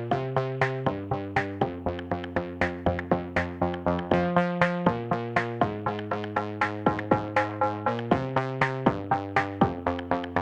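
Background music: a synthesizer and drum-machine track with a steady beat, about four notes a second over changing chords.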